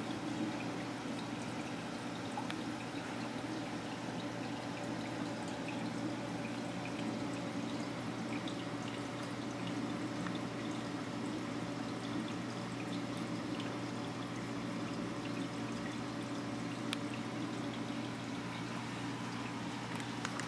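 Saltwater reef tank's system running: a steady trickle and rush of moving water with a low, steady hum from the return pump.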